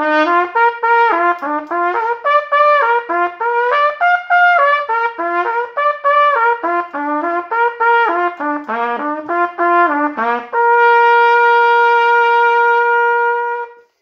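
Trumpet playing a warm-up exercise of quick three-note arpeggio figures, do-mi-sol up and back down, with the first two notes of each group slurred and the third tongued. About ten seconds in it holds one long steady note for about three seconds, then stops.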